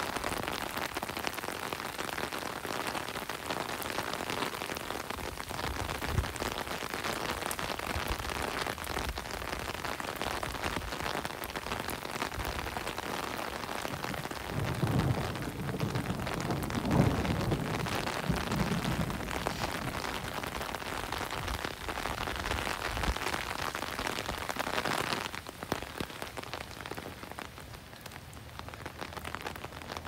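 Steady rain falling on pavement and street, an even hiss of drops, with a low rumble about halfway through. The rain sound turns softer over the last few seconds.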